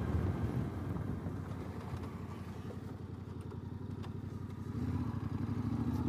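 Yamaha Ténéré 700's parallel-twin engine running at low revs with an even firing beat, getting quieter through the middle and picking up again near the end.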